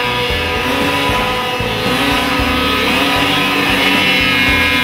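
Snowmobile engine running at high revs as the sled skims across open water, its pitch rising and falling.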